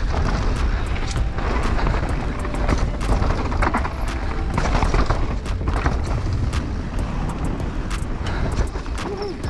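Downhill mountain bike ridden fast on a rough dirt trail: wind buffeting the camera microphone as a heavy rumble, with frequent knocks and rattles from the tyres, suspension and chain over the bumps.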